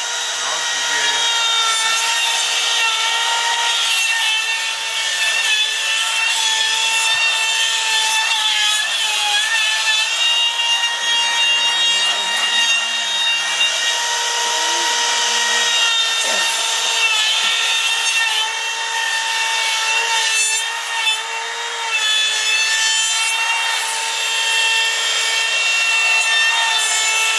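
Makita 18V cordless trim router with a straight bit running at a steady high whine while it cuts a circular groove into solid wood, the bit chewing through the timber a few millimetres per pass as the router is swung around on a pivoting circle-cutting arm.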